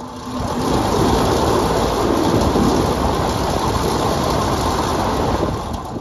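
Both condenser fans of a York rooftop AC unit running on a test with the condenser motor contactor pushed in by hand: a loud, steady rush of air that builds about half a second in and falls away just before the end. This is the test of whether the fan motors still work after one blade caught and tore out the motor's wiring plug.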